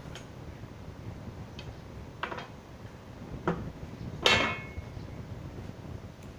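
A few separate light knocks and clinks of hard objects being handled. The loudest is a ringing, metallic-sounding clink about four seconds in.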